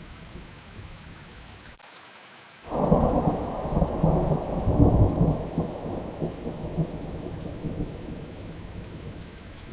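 Steady rain falling, then, a little under three seconds in, a sudden loud clap of thunder that rolls on as a deep rumble and slowly fades over the following several seconds.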